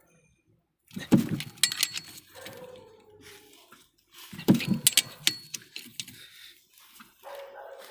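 Two short bouts of sharp clinking and rattling, about a second in and again around four and a half seconds in, with a lower scraping noise between them.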